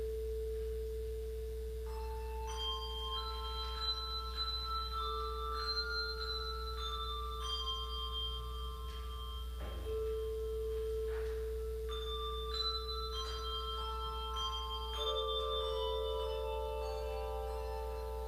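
Handbell choir playing slowly: struck bells ring on long and overlap as a melody, over a held lower note that is re-rung about every five seconds. The higher melody notes enter about two seconds in.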